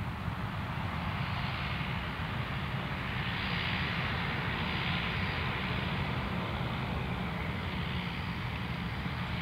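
Turboprop engines of a De Havilland Canada Dash 8-400 running at taxi power as it lines up on the runway: a steady hum and hiss that swells a little in the middle.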